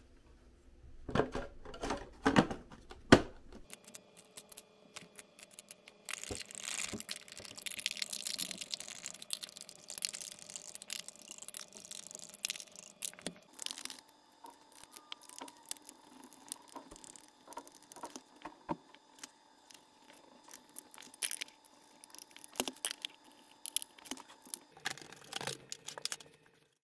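Plastic housing parts of a Dyson Cinetic canister vacuum being fitted back together and screwed up by hand: irregular clicks, knocks and rattles of plastic, with a few sharper knocks in the first few seconds.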